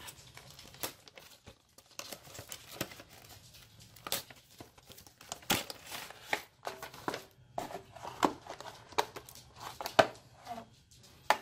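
Clear plastic clamshell packaging being handled and pried open: scattered crinkles and sharp plastic clicks and snaps, getting busier and louder in the second half.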